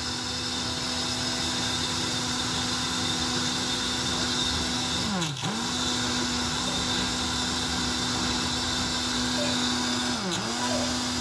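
Countertop blender motor running steadily while blending a thick batter. Twice, about five seconds in and again near the end, its pitch drops sharply and then comes straight back up.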